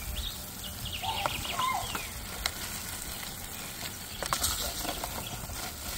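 Metal grilling utensils clicking and scraping against an aluminium foil tray as chicken breasts are turned on a propane grill. A few short chirps come in the first two seconds, and a couple of sharp clicks come later.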